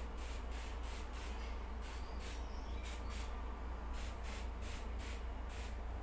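Handheld pump-action garden sprayer set to a fine mist, its trigger squeezed again and again: a quick series of short hissing spray bursts, about two to three a second.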